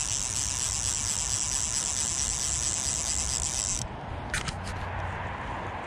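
A fly reel's click check ratchets in a steady, high buzz for about four seconds, then stops. A short click follows about half a second later, over a steady rush of river and wind.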